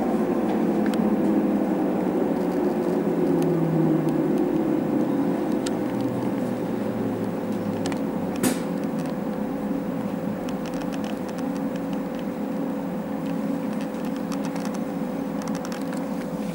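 Berlin S-Bahn electric train heard from the driver's cab as it slows to a stop, its whine falling steadily in pitch over about eight seconds. A sharp click follows, then a steady electrical hum from the standing train.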